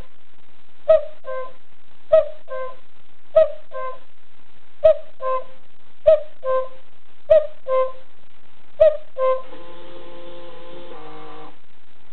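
Modern cuckoo clock striking the hour: a sharp click, then a two-note cuckoo call falling from high to low, repeated seven times at an even pace. After the last call a held chord of several steady tones sounds for about two seconds and cuts off.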